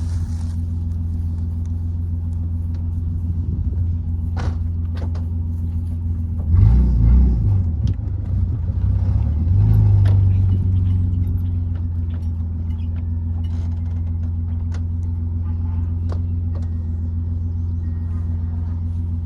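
A vehicle engine running steadily at a low drone. It picks up briefly about six to eight seconds in and again around ten seconds, and there are a few sharp knocks.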